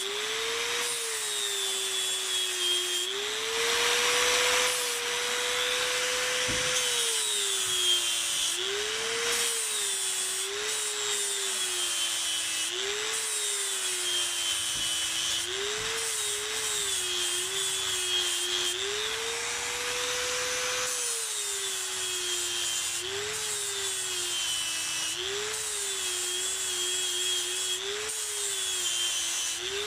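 Angle grinder with an abrasive disc grinding water buffalo horn. The motor whine drops in pitch each time the disc is pressed into the horn and climbs back as it is eased off, about every two to three seconds, over a steady rasping hiss.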